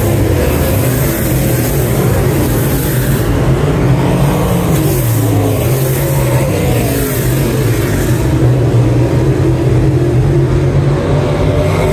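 Dirt late model race cars running hard past the trackside, their V8 engines droning continuously. The engine pitch climbs and falls as cars go by, about four to six seconds in.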